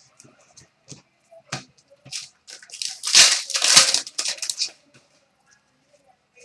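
Trading card pack wrapper crinkling and tearing as a pack is opened, amid small clicks and rustles of cards being handled. The loudest crinkling comes about three to four and a half seconds in.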